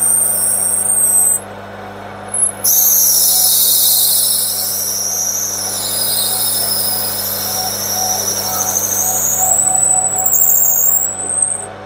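5 mm twist drill cutting into a spinning brass pump body on a lathe, giving a high-pitched screech that wavers in pitch over the steady hum of the lathe motor. The screech breaks off for about a second near the start and stops shortly before the end, as the drill breaks through into a cross hole.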